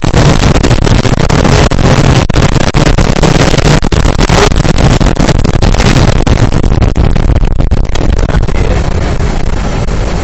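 Off-road buggy engine running hard, loud and distorted, with many short knocks and clicks over it. The sound eases over the last few seconds.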